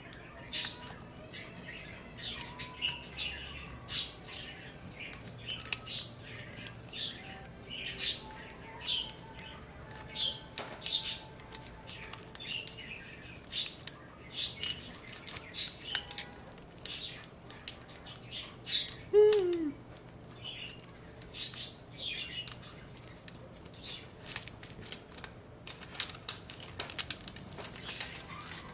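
Irregular small clicks and crackles, one or two a second, from hands working a plastic backlight film loose from a MacBook Air keyboard. A short falling squeak about two-thirds of the way through is the loudest sound.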